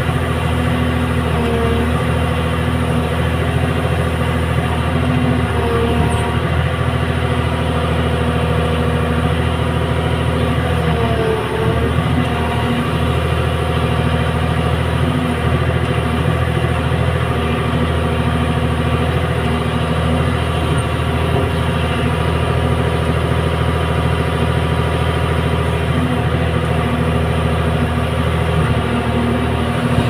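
Diesel engine of a Hyundai Robex 300LC hydraulic excavator running steadily while the machine works its bucket, with a brief dip in pitch about eleven seconds in.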